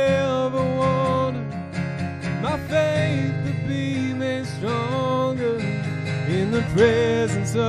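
Live worship song: strummed acoustic guitar over an electric bass guitar, with a man's voice singing long held notes that slide up into each phrase.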